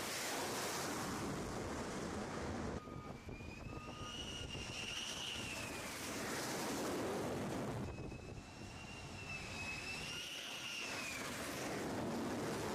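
Jet engines on an aircraft carrier flight deck: a continuous jet rumble and hiss, with a high turbine whine that rises and then falls in pitch, twice. The sound changes abruptly twice.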